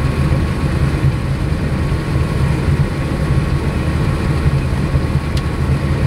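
Combine harvester running steadily while cutting soybeans, heard from inside the cab: a steady low engine and machinery rumble with a faint high whine over it, and a single small click about five seconds in.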